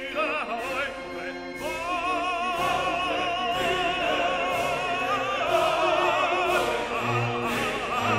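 Background music in operatic style: held orchestral notes, then a singer with a wide vibrato comes in about two seconds in and sings over the orchestra.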